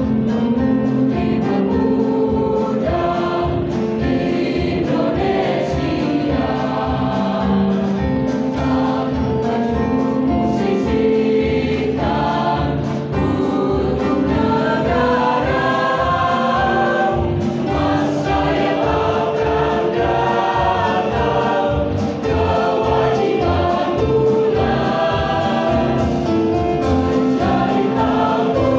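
A mixed choir of boys and girls singing together, accompanied by two electronic keyboards with a steady beat.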